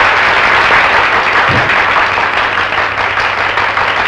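An audience applauding, many hands clapping in a dense, steady patter, with a steady low hum underneath.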